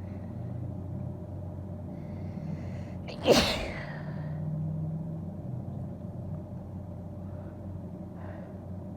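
A woman's single big wet sneeze: a breathy inhale builds up for about a second, then one sharp, loud sneeze bursts out about three seconds in and trails off.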